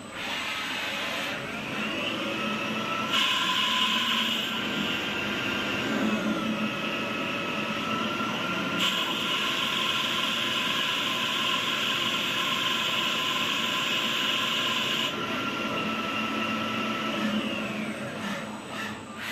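CNC lathe running while turning aluminium: a steady machine whine whose tones rise about two seconds in and fall near the end, with a louder hiss during two stretches in the middle.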